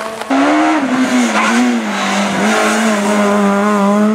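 Renault Clio S1600 rally car's naturally aspirated four-cylinder engine running at high revs, loud and steady, with a couple of brief dips in pitch. It comes in abruptly about a third of a second in.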